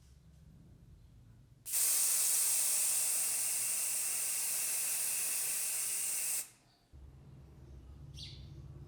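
A steady spray hiss of about five seconds that starts and stops abruptly, followed by a low hum starting about seven seconds in.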